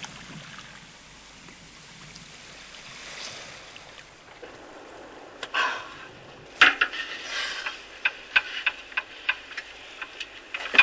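Hand tools clinking and tapping on the metal of a seaplane's radial engine during a repair, irregular sharp knocks two or three a second, starting about halfway through. Before that there is only a faint, even wash of water.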